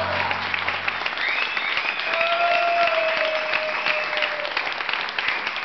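The last held note of tango music fades out in the first second, then an audience applauds, with a long whistle and calls rising over the clapping.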